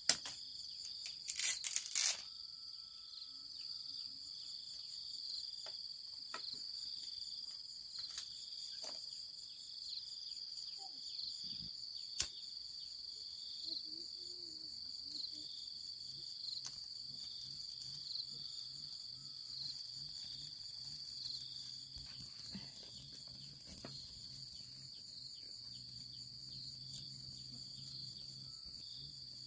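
Insects buzzing steadily in a high, pulsing chorus, with loud sharp cracks of dry bamboo being split into strips in the first two seconds, and scattered fainter snaps and clicks from handling the strips and kindling.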